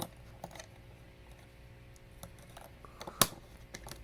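Hard plastic Lego Hero Factory pieces clicking as they are handled and fitted together, with a few light clicks and one sharp snap about three seconds in.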